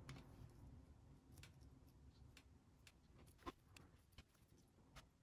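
Faint, irregular light clicks and taps of small thin plywood puzzle pieces being handled and pressed together, about eight in all, the sharpest about three and a half seconds in, over a low room hum.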